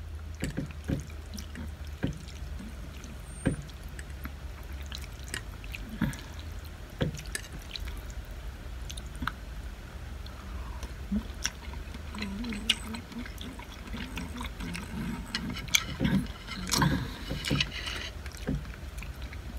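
Eating sounds: a fork clicking and scraping on a ceramic plate, with chewing and slurping of noodles, over a steady low hum.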